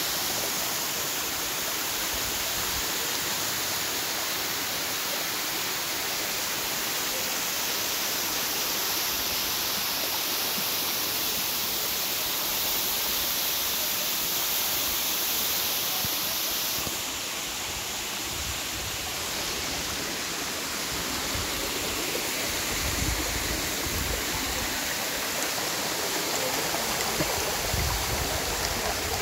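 Waterfall: a steady rush of falling water. The sound changes slightly about two-thirds of the way through, and low rumbles come in near the end.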